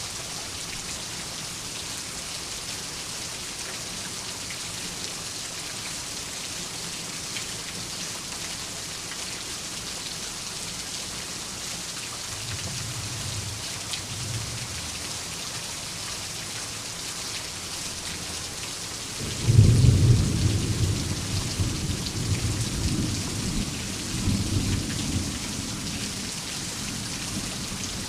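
Steady rain falling, with a soft rumble of distant thunder about halfway through. About two-thirds in, a loud thunderclap breaks suddenly and rolls on in rumbles for several seconds before fading back under the rain.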